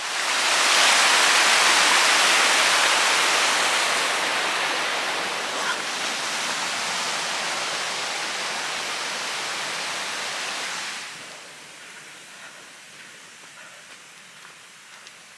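Rushing water of a hill stream or burn, a loud, even rush that is strongest at first, eases slowly and drops away about eleven seconds in to a faint hiss.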